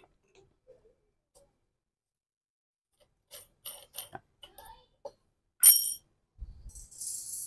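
Small clicks and clinks of an electric wall fan's parts being handled during disassembly, with one sharper metallic clink that rings briefly about two-thirds of the way through, then a short hiss near the end.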